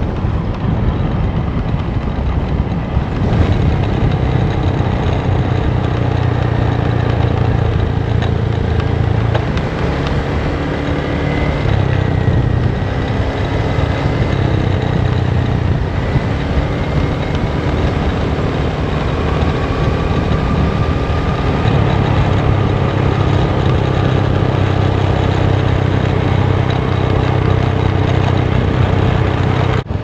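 Motor scooter engine running steadily under way, a low hum over a broad rush of wind and road noise.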